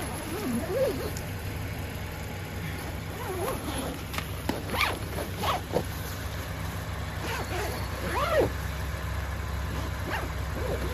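Tent door zipper being pulled shut in several separate short zips, with a steady low hum underneath.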